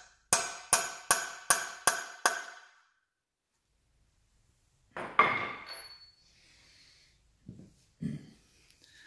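Hammer tapping a centre punch six times in quick succession, each strike ringing briefly, to mark the centre of a core plug in a Porsche engine block before it is drilled. A louder clatter follows about five seconds in, then a couple of soft knocks.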